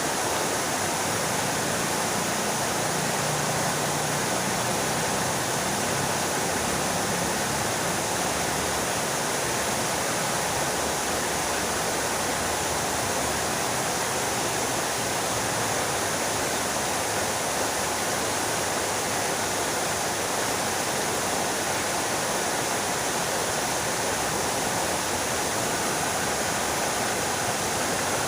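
Fountain water splashing steadily: a continuous, even rush of falling water.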